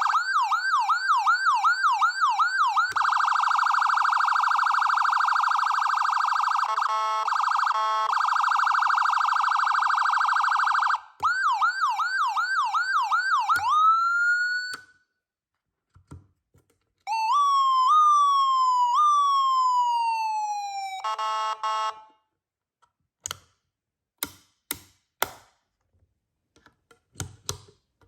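Whelen Epsilon electronic siren cycling through its tones. It opens with a fast yelp, then holds a steady buzzing tone that stutters briefly partway. The yelp returns and winds up to one high note that cuts off. After a pause come two slower rising-and-falling sweeps, a short buzzing blast, and then a run of sharp clicks.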